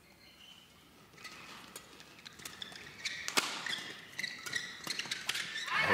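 Badminton rally: rackets hitting a shuttlecock, with short sharp clicks and one sharp hit about three and a half seconds in, and shoes squeaking on the court floor. These court sounds begin about a second in, after near silence.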